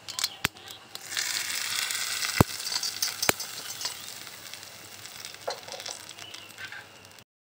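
Hot mustard-oil tadka with dried red chillies, curry leaves and mustard seeds poured onto kadhi, sizzling as the oil hits it and fading away over several seconds. A few sharp clicks sound over it.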